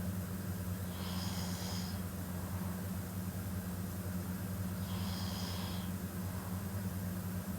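A young woman snoring in her sleep: two slow breaths about four seconds apart, each with a faint high whistle, over a steady low hum.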